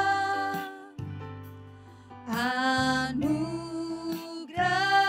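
Indonesian worship song: a voice singing over backing music with bass. A held note fades about a second in, and singing comes back in with an upward slide a little past two seconds.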